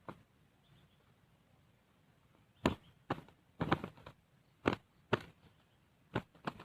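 Irregular sharp slaps, about nine in all and mostly in the second half, from a spotted dove's wings beating as it fights.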